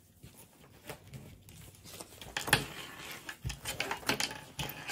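Rummaging through a zippered project bag: rustling and crinkling with scattered clicks and knocks. It starts quietly and grows busier about halfway through.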